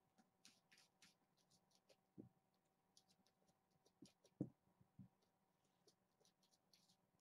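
Faint scratching and scuffling of kittens' paws on carpet, with a few soft thumps as they leap and land, the loudest about four and a half seconds in.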